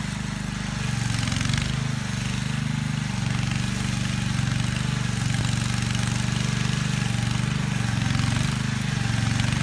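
Walk-behind hand tractor's small engine running steadily as it is driven slowly across a field, its note wavering slightly.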